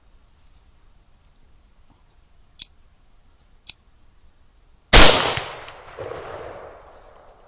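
Two short, sharp clicks, then a single loud rifle shot about five seconds in, its report rolling away and dying out over about two seconds.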